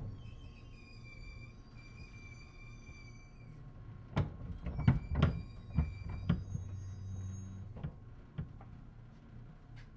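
Inside a JR East 211 series electric train car: a steady low hum, with a few steady high tones together for the first few seconds, then an irregular cluster of loud clunks and thumps about four to six seconds in.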